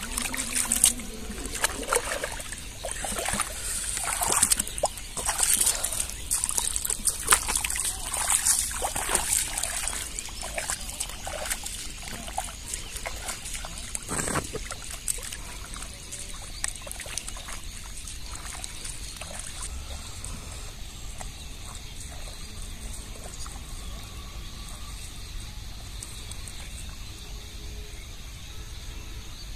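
Shallow muddy water splashing and sloshing as a person's hands and feet move through it, busy with many short splashes over roughly the first twelve seconds, then dying down to a quiet, steady outdoor background.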